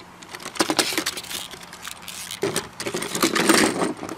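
Plastic toy train engine and tender clicking and clattering as they are handled and coupled on a tabletop: a few sharp clicks in the first second, then a longer run of clatter near the end.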